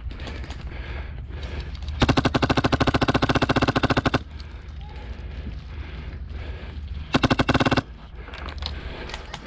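Airsoft gun firing on full auto, very close: a rapid burst of about two seconds, then a short burst of under a second a few seconds later.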